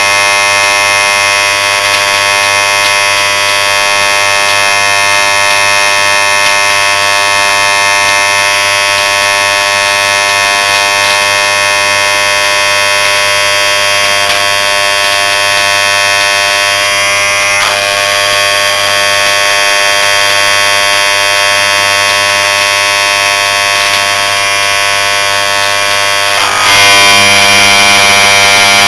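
Refrigerant compressor's electric motor, shell cut open, humming with a loud, steady electrical buzz as its stator windings smoke and burn out. About 27 seconds in, the buzz suddenly gets louder and harsher.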